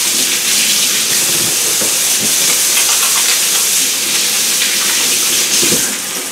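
Beef roasts searing in hot olive oil in an Instant Pot's inner pot on the sauté setting: a steady sizzle, easing a little near the end.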